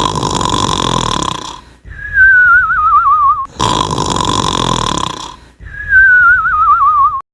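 Cartoon snoring sound effect, twice over: a rasping snore on the in-breath, then a high whistle on the out-breath that falls and wobbles. It cuts off abruptly near the end.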